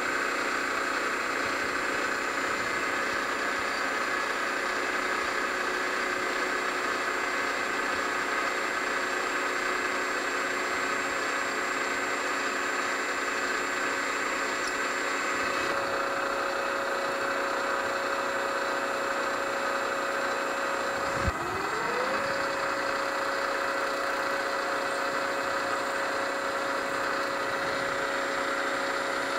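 Milling machine spindle motor running steadily with a hum made of several constant tones while a small cutter bores into a metal steam engine part. About 21 seconds in the motor briefly cuts out and spins back up, rising in pitch to its steady speed.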